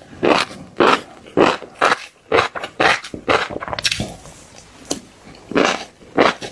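Close-up crunchy chewing of fish roe: separate wet, crackling bites about twice a second, with a short lull a little past the middle.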